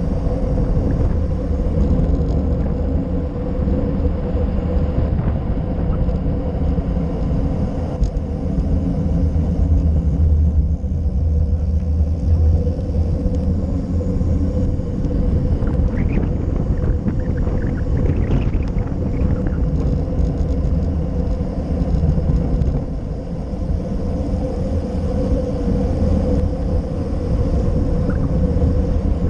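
Wind buffeting and steady road rumble on a handlebar-mounted GoPro Session as a road bike descends at speed, a continuous low rush with tyre noise from the asphalt.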